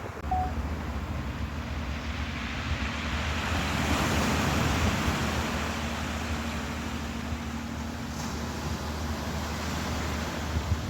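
Ocean waves washing in, the surf swelling to its loudest about four seconds in and then easing off, over a steady low hum.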